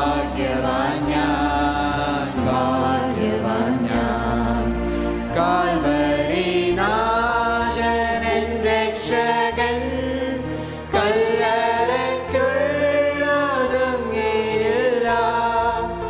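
A hymn sung by a small group of singers with instrumental accompaniment, in long held notes.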